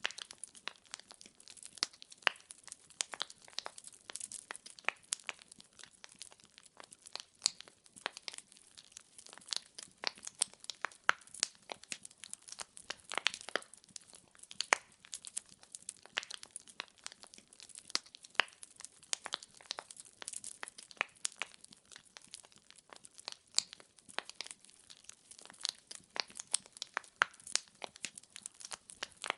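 Burning wood crackling and popping in a fireplace: a continuous stream of irregular sharp snaps over a faint hiss.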